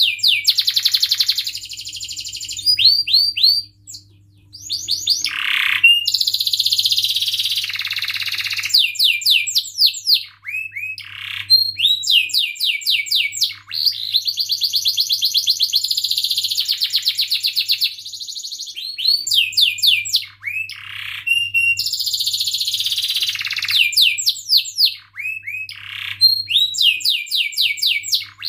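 Domestic canary singing in full, energetic song: long rolling trills of very fast repeated notes alternating with swooping whistled chirps, broken by a few brief pauses.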